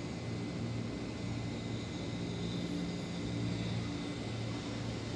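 Steady low electrical-mechanical hum from an electric train standing at the platform, its tones swelling and fading a little, over a general background rumble.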